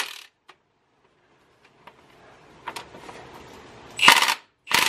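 Cordless Milwaukee Fuel impact wrench hammering a crankshaft pulley bolt tight in short bursts: a brief burst at the start, a near-quiet pause with a few faint clicks, then another burst about four seconds in.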